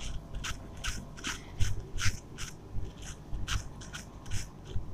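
Whiteboard eraser rubbing back and forth across a whiteboard, wiping off marker writing: a quick run of short rasping strokes, about two to three a second, each with a soft low thump against the board.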